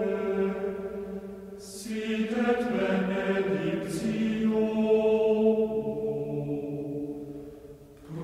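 A slow sung chant: voices holding long notes that shift pitch every second or two, with sung words now and then.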